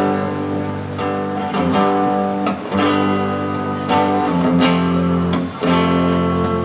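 Guitar strumming held chords between sung lines of a song, a new strum roughly every second.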